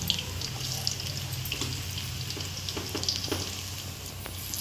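Battered onion pakoras deep-frying in hot mustard oil in a kadhai: a steady sizzle with many small crackles and pops.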